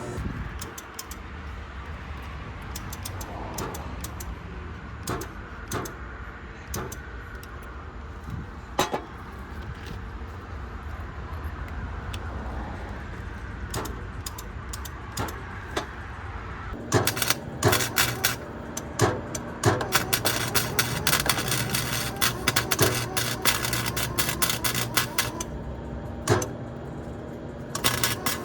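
Wire-feed welder arc crackling in a dense, steady sputter with a low hum under it while welding an exhaust pipe, starting a little past halfway and stopping about two seconds before the end, then starting again right at the end. Before the weld, scattered clicks and knocks.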